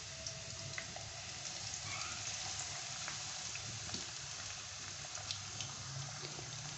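Sliced onions sizzling in hot oil in a kadhai as they fry for a tadka: a steady, even hiss with scattered small pops.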